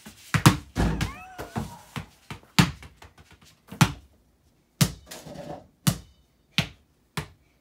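Basketballs bouncing on a basement floor mat: several quick bounces in the first two seconds, then single bounces about a second apart, coming a little faster near the end. A short high squeak sounds about a second in.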